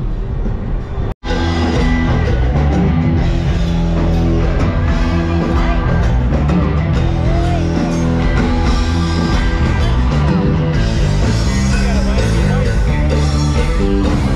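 Rock music with a steady beat and a singing voice. It drops out for a split second about a second in, then runs on at full level.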